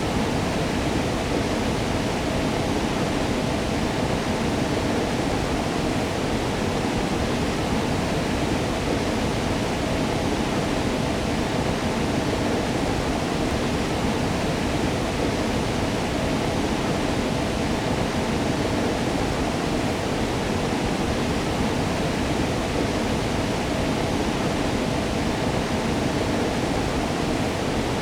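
Waterfall: water falling and splashing in a steady, unbroken rush, heaviest in the lower and middle range.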